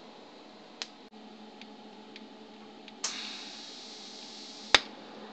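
TIG welding torch: a click about a second in, then a sudden hiss starting about three seconds in and lasting under two seconds, cut off by a sharp, loud snap, over a faint steady hum and scattered ticks.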